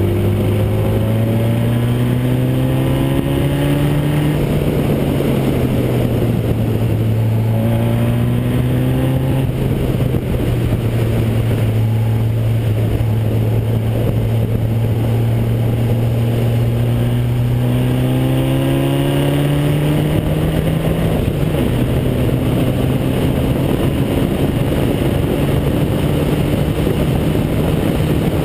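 Onboard sound of a Formula Basic single-seater racing car's engine at speed on track, its pitch climbing under acceleration and falling back twice, with steady wind and tyre noise.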